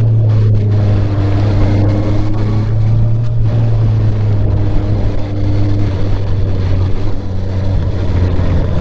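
2023 Honda CBR650R's inline-four engine and exhaust under way, holding a fairly steady engine speed, with wind noise on the microphone.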